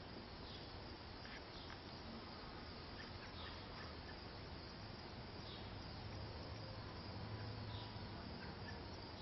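Faint outdoor ambience: a steady hiss with scattered faint, high, irregular chirps of insects, and a low hum that swells slightly about six to eight seconds in.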